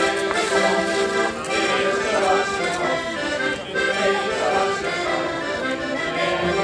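Accordion playing a traditional folk dance tune, with steady sustained chords under a moving melody.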